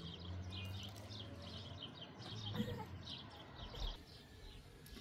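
Small birds chirping, with many short, quick chirps overlapping, over a low steady hum. There is a single sharp tap about two and a half seconds in.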